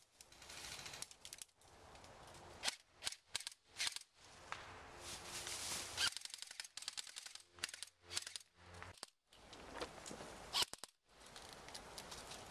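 Airsoft guns firing, single shots mixed with rapid bursts of full-auto fire, the densest burst about halfway through.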